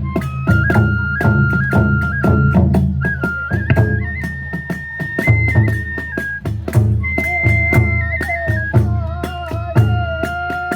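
Kagura hayashi ensemble playing: a bamboo transverse flute carries a high melody of held notes with quick trills over a fast, steady drum beat and sharp metallic strikes from small hand cymbals.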